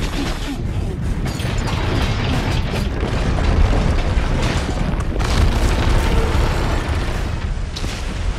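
Film sound effects of a steel-framed high-rise collapsing: a continuous heavy, deep rumble of falling concrete and steel with scattered crashes and cracks, loudest in the middle and easing slightly near the end.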